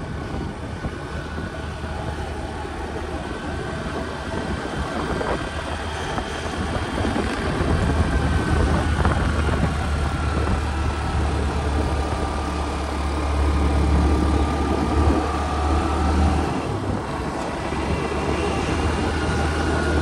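Small motorbike engine running while riding along a road, the pitch of its whine drifting up and down with the throttle. It grows somewhat louder about eight seconds in.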